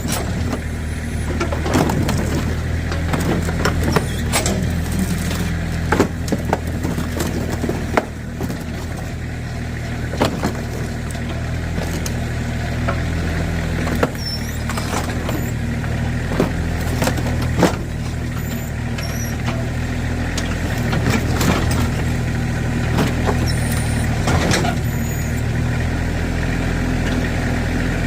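Backhoe's diesel engine running steadily under load, with irregular sharp cracks and snaps of plastic toys and junk breaking as the bucket crushes them.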